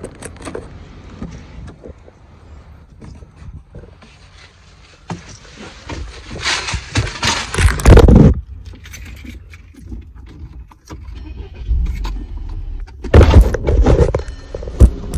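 Handling noise from a phone's microphone: rubbing, rustling and knocks as the phone is gripped and moved around inside a car. The noise is loudest about halfway through and again near the end.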